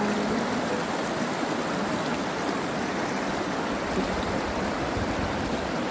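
Shallow rocky mountain stream rushing and splashing over boulders and small cascades in a steady wash of water.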